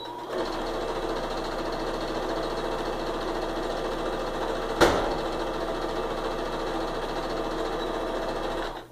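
Electric domestic sewing machine running steadily as it stitches a seam joining fabric strips, starting just after the beginning and stopping abruptly near the end. A single sharp knock sounds about halfway through.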